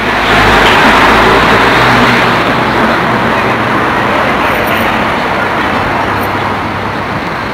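A car's engine and exhaust noise echoing in a concrete tunnel as it drives away, loudest at first and slowly fading into general traffic noise.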